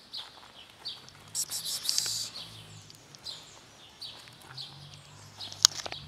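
Small birds chirping repeatedly, short high chirps every half second or so, over a faint low hum. A single sharp click about five and a half seconds in.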